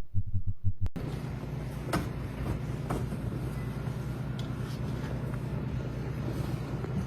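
Steady low engine rumble of a motor vehicle running, with a few light knocks about two and three seconds in.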